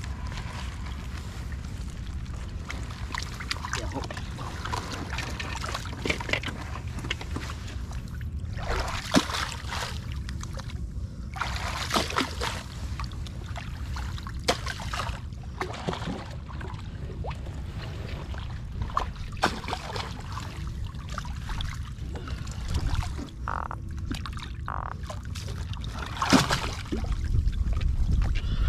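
Water splashing and sloshing around a small fishing boat over a steady low rumble, with occasional sharp knocks and a louder splashing surge near the end.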